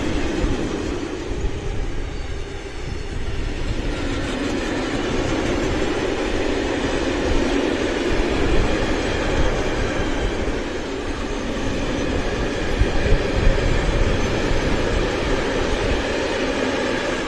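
A freight train's high-sided open wagons rolling past close by: a steady, continuous rumble of steel wheels on the rails.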